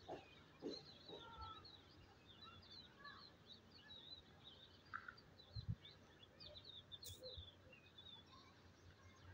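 Faint chorus of many small birds chirping together, a steady stream of short high chirps overlapping one another, with a soft low thump about five and a half seconds in.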